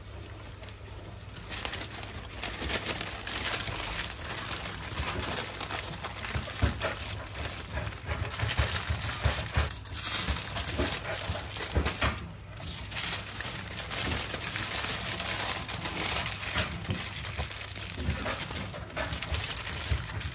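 Aluminium foil and greaseproof paper being crumpled and scrunched by hand into a tight parcel: an irregular crinkling that runs on, with short breaks about halfway and near the end.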